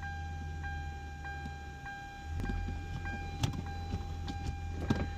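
2005 Hyundai Tiburon V6 running while the clutch is worked to find its engagement point. The engine sound grows louder about two seconds in as the clutch takes up, which here happens far too late in the pedal travel. A steady light tick comes two to three times a second, with a couple of sharper clicks.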